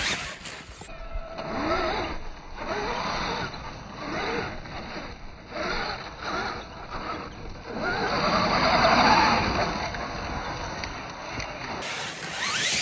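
Electric RC mega truck (Losi LMT) driving up a dirt hill, its motor revving up and down and its tires churning loose dirt. The run is loudest about eight to nine seconds in.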